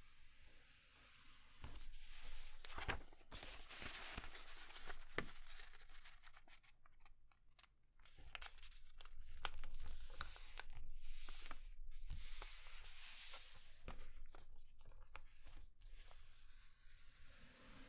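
A sheet of grid paper being folded and creased by hand on a cutting mat: rustling, crinkling and scraping as the paper is turned and the folds are pressed flat, with small sharp clicks, a short lull about seven seconds in, then louder handling.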